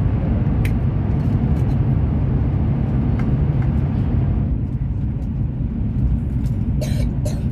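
Fuxing CR400BF-Z high-speed train running at speed, heard from inside the carriage as a steady low rumble and rushing noise. A few short sharp clicks come near the end.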